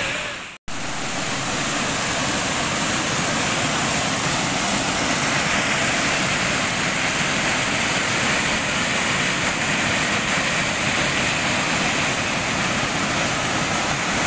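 Waterfall pouring into a rock pool, a steady, even rush of falling water close by. It comes in after a brief gap about half a second in.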